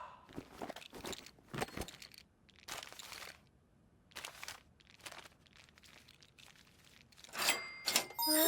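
A run of irregular short crunching and rustling noises, then two sharp clicks near the end.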